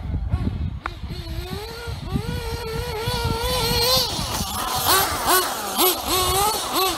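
RC buggy's motor whining: the pitch climbs about a second in and holds steady, then rises and falls in quick throttle blips about twice a second.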